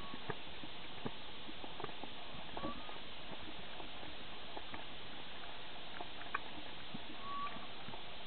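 Underwater ambience recorded on the camera: a steady hiss with scattered sharp clicks and crackles, and a few brief high chirps.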